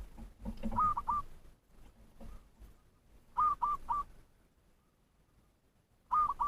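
A lure bird calling in rhythm: groups of two or three short whistled notes, repeated about every two and a half to three seconds, the call used to provoke rival or wild birds. A fainter low sound comes during the first second.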